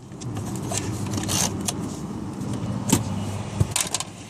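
Plastic clicks and knocks of a car's interior door-handle trim cover being pried and worked loose, with two sharper clicks about three seconds in, over a steady low hum.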